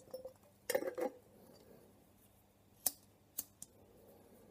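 Handling sounds of a glass-jar pulse jet being set up for lighting: a brief clatter about a second in, then three sharp clicks near the end.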